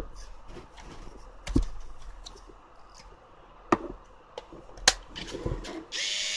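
Plastic clicks and knocks as a Kyocera Samurai Z2 film camera is handled and its back cover is snapped shut over the film. Near the end, its motor whirs briefly as the camera auto-advances the newly loaded film.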